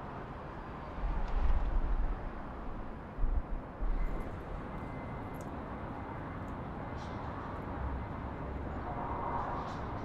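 City street ambience: a steady hum of distant traffic, with a few deep low rumbles in the first half.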